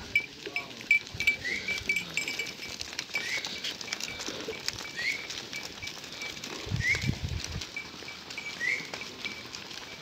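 A herd of goats walking along a dirt track: scattered hoof patter and shuffling, with a short rising chirp repeating about every two seconds.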